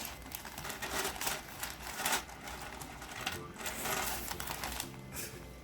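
Plastic K'NEX pieces clattering and clicking against each other in irregular bursts as they are rummaged through and sorted by hand.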